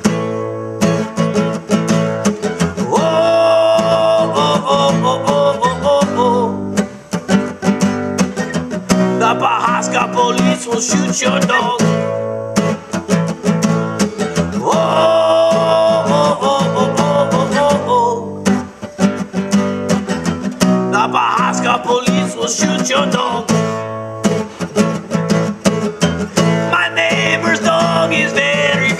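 A song: an acoustic guitar strummed in a steady rhythm, with a voice singing in phrases every few seconds.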